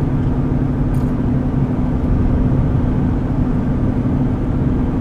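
Steady car-interior rumble of engine and road noise with a constant low hum, heard from inside the cabin of a moving or idling car.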